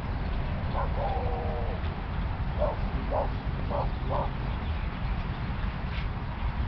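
A few short animal-like squawks, a gliding call about a second in and then several quick ones roughly half a second apart, over a steady low rumble.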